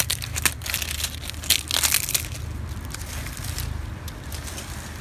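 Dry ketapang (Indian almond) leaves crackling and crunching as they are gathered up by hand, dense for the first two seconds, then thinning out.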